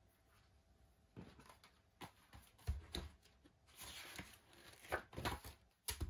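Paper handling: a sheet of notepad paper rustling as it is brought in and laid down on a worktop, among a scatter of light knocks and clicks and one dull thump.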